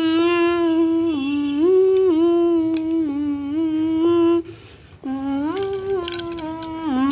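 A child humming a simple tune in long held notes that step up and down between a few pitches, breaking off briefly a little past halfway.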